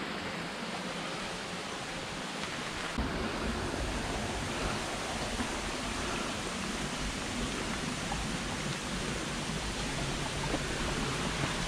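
Steady rush of water from a rocky stream running over stones. A low rumble joins in about three seconds in.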